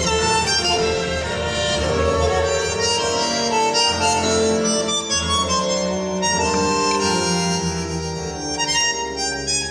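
Recorded tango orchestra music with a bandoneon carrying the melody.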